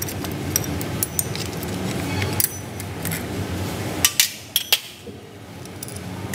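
Scattered metallic clinks and taps of a socket wrench and metal parts against a PE inline diesel injection pump as the vacuum governor is being unbolted, with a sharper clink about two and a half seconds in and a few more just after four seconds.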